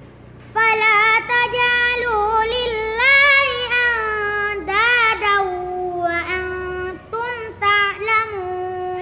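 A young girl reciting the Quran in melodic tilawah style: one long chanted phrase with ornamented, wavering turns of pitch. It begins about half a second in and settles onto a long held lower note near the end.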